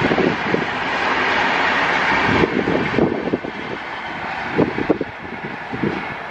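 Passenger train running past on the rails: a rushing rumble of wheels on track with irregular thumps, fading as the train draws away. The higher rushing noise drops off suddenly about two and a half seconds in.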